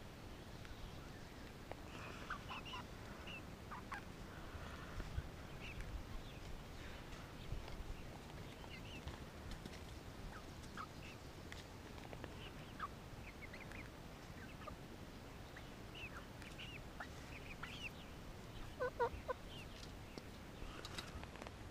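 A small flock of chickens softly clucking and peeping in short, scattered calls, with a louder run of clucks about nineteen seconds in.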